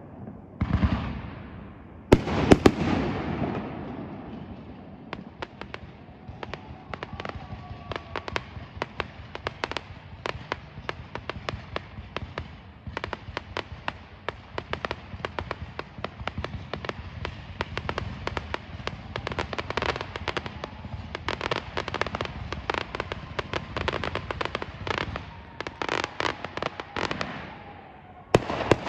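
Fireworks: two loud aerial bursts about one and two seconds in, then a long run of rapid crackling pops. Another loud burst comes near the end.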